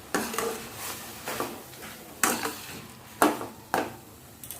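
Spatula stirring thick palm-fruit pulp and grated coconut in a kadai, scraping against the pan in uneven strokes about once a second.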